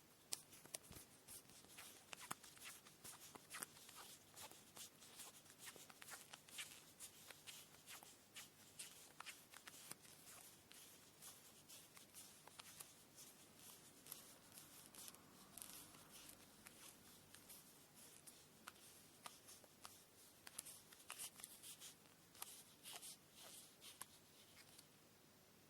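Quiet hand work with cotton thread for kumihimo braiding: light rustling and many quick small ticks, thinning out around the middle and stopping shortly before the end.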